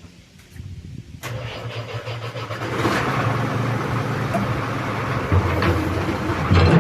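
Excavator engine starting about a second in, then running steadily and growing louder a couple of seconds later.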